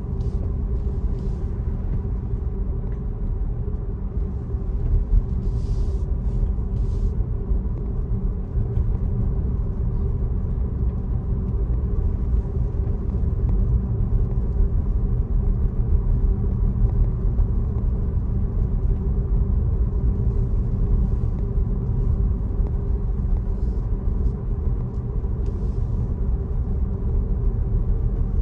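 Steady low rumble of a car driving, mostly tyre and road noise.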